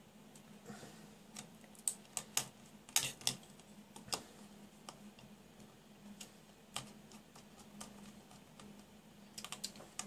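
Irregular small clicks and taps of a circuit board and a wire being handled, as the wire is fitted into the board's terminal block. A faint steady hum runs underneath.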